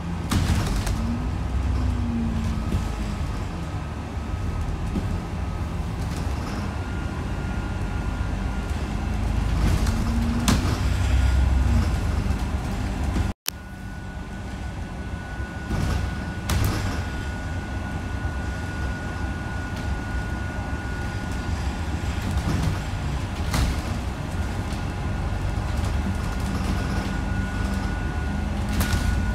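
Inside a bus moving at speed on a motorway: a steady low engine and road rumble with a thin, steady high whine, and a few sharp knocks and rattles from the bodywork. The sound drops out for a split second about halfway through.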